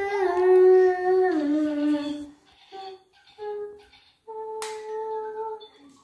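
A child humming or singing a wordless tune. Held notes slide and step down in pitch for about two seconds, then come short separate notes, then one longer note near the end.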